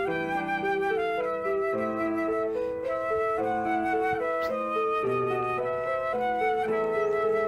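Background music: a flute plays a melody of held notes over a soft lower accompaniment.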